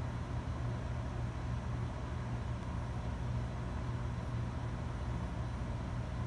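Steady low hum with an even fan-like hiss from running computer and network equipment, unchanging throughout.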